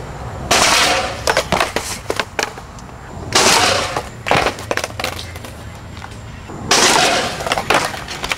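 Skateboard hitting concrete three times, about three seconds apart, each a loud slam followed by a run of quick clacks as the board bounces and clatters on the concrete steps.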